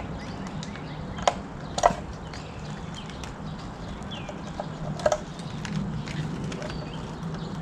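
A few sharp clicks and taps from hands working on the outboard's wiring and parts, three louder ones about a second in, near two seconds and around five seconds, over a steady low hum with faint bird chirps.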